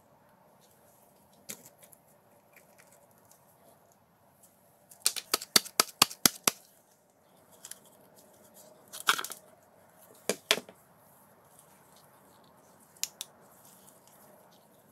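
Hand handling of a DeWalt drill's motor parts as the field stator is worked out of its plastic housing: a quick run of about eight sharp clicks, then a short scrape, two knocks and a single click near the end.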